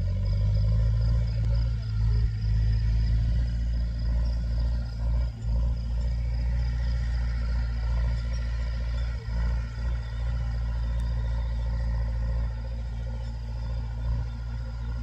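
Massey Ferguson 290 tractor's diesel engine running steadily while pulling a plough, the sound mostly deep, with two brief dips in level.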